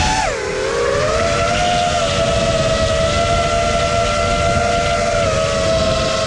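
FPV quadcopter's motors and propellers whining, several close pitches sounding together. They rise briefly at the start, drop about half a second in as the throttle eases, then hold steady, over a low rush of wind noise.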